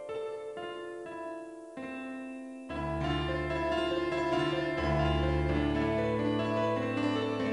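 Background piano music; deeper bass notes come in about three seconds in and it gets louder from there.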